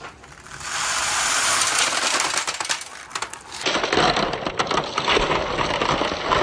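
Many hard balls rolling and clattering together down a wooden marble-run track in a dense, continuous rattle of clicks and knocks.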